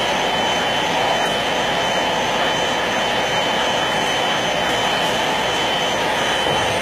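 CNC wood router running, a steady machine noise with a thin high whine held over it.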